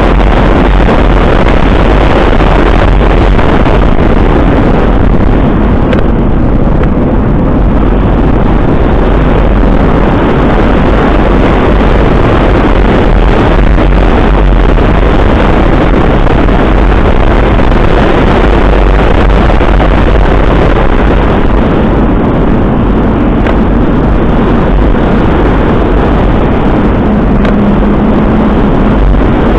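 Loud, steady wind rush buffeting the microphone of a camera moving fast downhill, with a deep rumble and no let-up. A faint steady tone shows briefly near the end.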